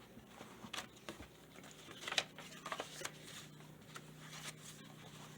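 Paper pages of a handmade junk journal being turned and handled, with short rustles and crinkles, the loudest about two seconds in.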